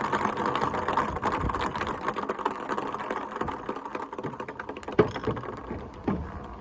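Ping pong balls rolling and bouncing down a children's slide: a dense rattle of light clicks and taps that thins out toward the end, with one louder tap about five seconds in.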